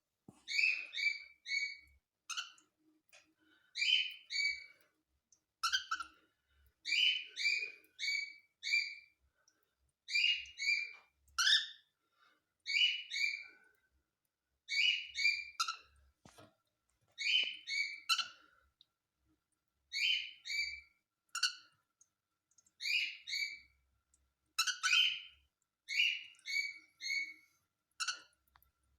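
Cockatiel calling in short repeated phrases of two to four quick chirps, a phrase every second or two.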